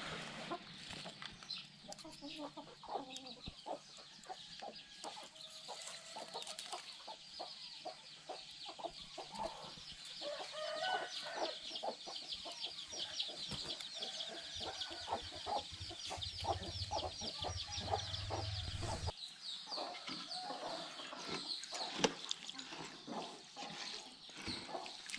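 Chickens clucking on and off over a steady high-pitched hiss.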